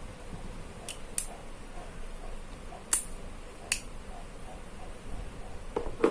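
Four sharp, short clicks spread over a few seconds as the impact screwdriver kit and its small bits are handled, over faint room hiss.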